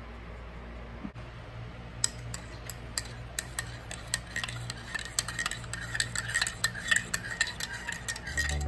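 Metal teaspoon stirring a drink in a ceramic mug, clinking against the inside of the mug several times a second from about two seconds in.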